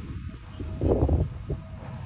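Wind gusting against the microphone, heard as uneven low rumbling buffets.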